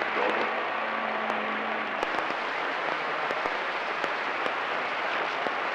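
CB radio receiver on channel 28 hissing with static between transmissions, with scattered crackles and a faint steady low hum in the first two seconds.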